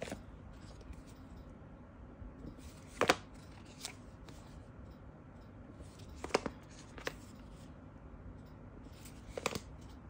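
Several short, sharp clicks in small clusters, a pair about three seconds in, a few more past the middle and again near the end, over faint steady room noise.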